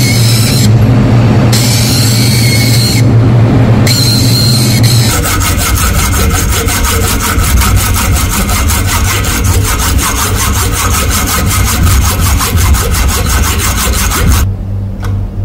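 A tool cutting or shaping wood. For the first few seconds there is a steady motor hum, with a noisier cutting sound that comes and goes about once a second. Then comes a fast, even run of rubbing, sawing strokes that stops shortly before the end.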